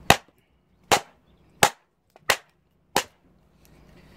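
A mallet striking the back of an axe head five times, sharp knocks about two-thirds of a second apart, driving the blade down into a knotty cherry round to split it.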